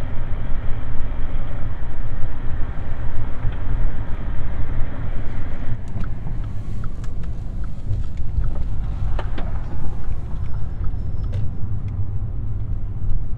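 Cabin road noise of a Mk5 Volkswagen Jetta driving: a steady low rumble with tyre hiss. From about six seconds in come a few sharp metallic knocks from the front suspension, whose coil spring has broken and lost a piece.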